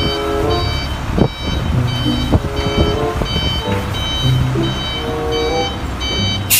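A large box truck's reversing alarm beeping about every 0.6 s, with a lower tune stepping in pitch, over the steady low rumble of its engine as it manoeuvres.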